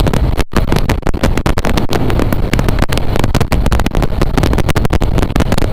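Wind buffeting the microphone of a motorcycle on the move, a loud, constant rushing with the bike's running underneath; the sound drops out for an instant about half a second in.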